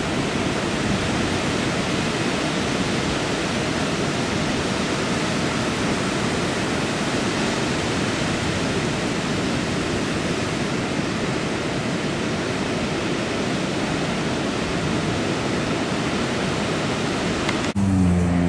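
Steady rushing of ocean surf breaking on a beach, an even noise with no single wave standing out. Near the end it cuts suddenly to the hum of a vehicle engine.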